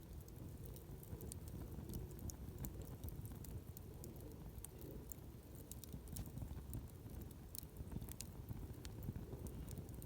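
Wood bonfire crackling: many small, irregular sharp pops and snaps over a steady low rumble.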